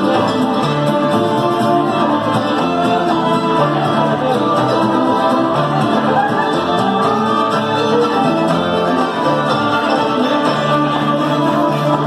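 Old-time string band playing a fiddle tune live: two fiddles bowing the melody together over strummed guitar and a walking bass line, in an even, driving rhythm.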